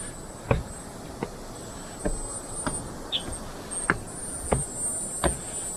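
Footsteps climbing trail stairs, an even step about every two-thirds of a second, with a thin, high-pitched insect trill above them that grows stronger near the end.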